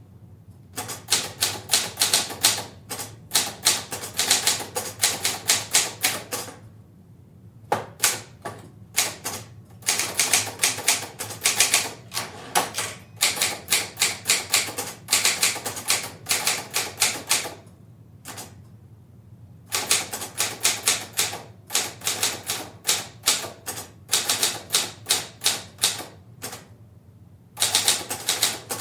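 Portable typewriter being typed on at a medium pace, heard from a distance in a live, reverberant room: runs of sharp key strikes several a second, broken by three pauses of about a second.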